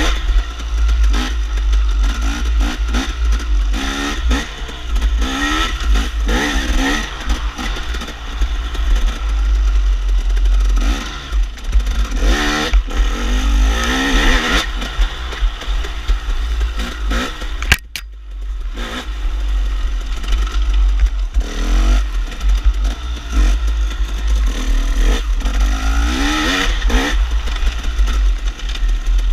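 KTM dirt bike engine revving up and down repeatedly as the throttle is worked through tight trail riding, with rattling from the bike and a low wind rumble on the microphone. About halfway through there is a sharp click and the sound briefly drops away.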